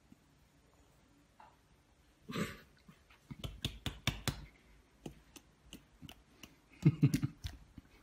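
A bottle of thick blended banana puree being slapped and shaken, a quick run of sharp knocks halfway through, then squeezed so the puree squelches out in a few loud wet sputters near the end.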